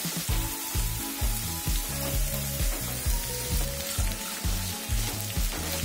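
Sliced onions sizzling as they fry in hot coconut oil in a pan, stirred with a wooden spatula.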